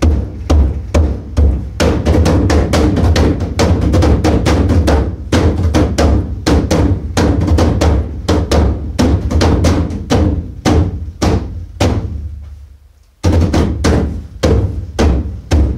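Giant hand-made drum, a hollowed white pine log with a deer-hide head still drying, played with the hands in a fast rhythm of deep strokes. The drumming dies away about twelve seconds in and starts again a second later.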